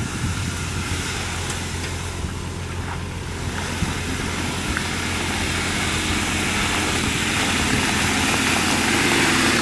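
Jeep Wrangler engine running at low revs as it crawls slowly toward the listener, growing steadily louder as it approaches, with the tyres crunching over loose stones.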